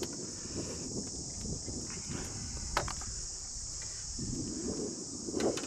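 Insects chirring in a steady high drone, over a low rumble, with a few sharp knocks, about three seconds in and near the end.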